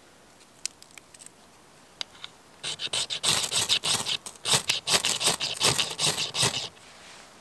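Knife spine struck down a firesteel (ferro rod) over wood shavings, a quick run of scraping strikes throwing sparks that lasts about four seconds, starting a few seconds in. A few light taps of wood and tools come before it.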